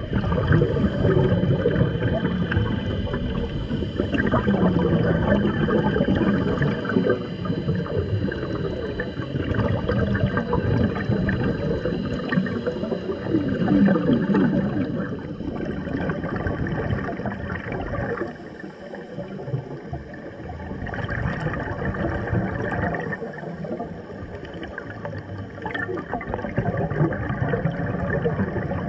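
Underwater recording of scuba divers' exhaled regulator bubbles: irregular gurgling and rumbling that swells and fades in waves, with a faint steady high tone underneath.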